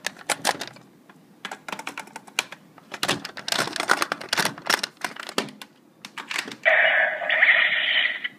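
Rapid plastic clicks and clacks from a Kyoryuger GabuRevolver toy gun being handled, then a loud electronic sound effect from the toy's small speaker lasting under two seconds near the end.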